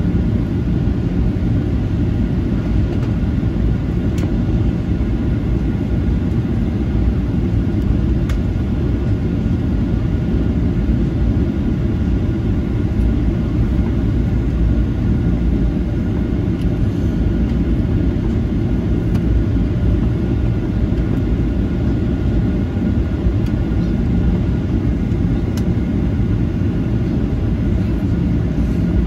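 Steady low rumble inside the cabin of a Boeing 737-900ER, from its engines and airflow, with a faint steady whine above it.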